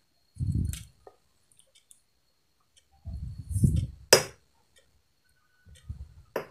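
Hands handling a zoomable LED flashlight on a table: two spells of low rubbing and bumping, then a sharp clink just after four seconds and a smaller click near the end.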